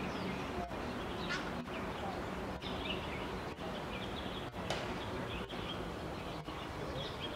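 Wetland ambience: a steady background hiss with faint, scattered chirping calls of small birds, and one brief sharp high call a little over halfway through.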